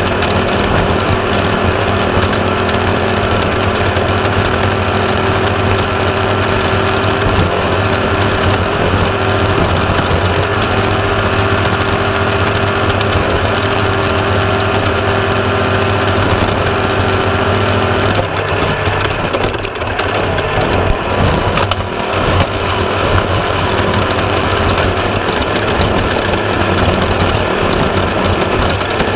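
Class 1/2-1600 desert race buggy running hard, its 1600 cc air-cooled Volkswagen engine held at steady revs. The pitch shifts and breaks for a few seconds past the middle, then settles steady again.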